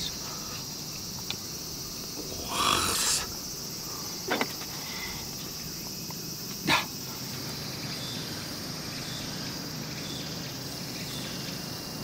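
Metal tongs clicking twice over a steady high insect drone, with a short, louder noisy sound about three seconds in.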